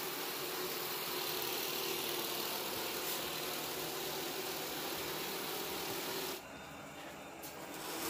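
Robot vacuum cleaner running with a steady whir. The sound drops away for about a second and a half near the end, then comes back.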